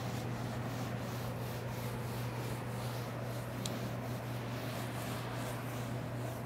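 Felt whiteboard eraser rubbing across a whiteboard in quick repeated wiping strokes, over a steady low hum. A single sharp click comes a little past the halfway point.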